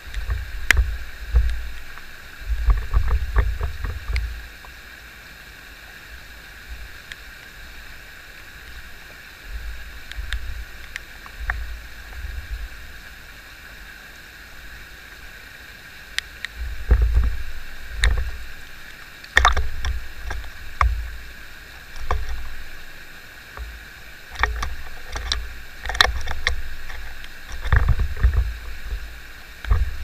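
Flowing stream water heard close to the surface as a steady rushing, with low rumbles swelling and fading every few seconds. Several sharp taps come in the second half.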